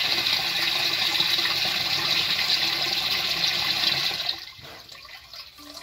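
Water gushing into a plastic overhead water tank as it fills, a steady splashing hiss that cuts off suddenly about four seconds in: the automatic level controller switching the pump off as the water reaches the upper sensor.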